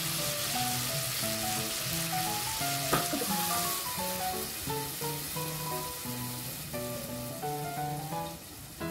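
Chilies, shallots and spices sizzling in hot oil in a cooking pot. The sizzle is strongest at first and dies down about four seconds in, as liquid fills the pot. Gentle melodic background music plays throughout, with a single click near the three-second mark.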